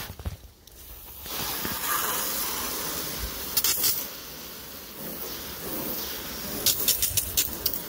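Garden hose spray hissing steadily against the textured bed-liner coating of a truck's door, rinsing off soapy cleaner, with water splashing onto pavement. The spray starts about a second in, with a few short spatters near the end.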